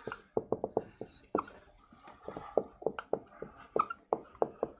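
Dry-erase marker writing on a whiteboard: a quick, irregular run of short squeaks and taps as the letters are stroked out.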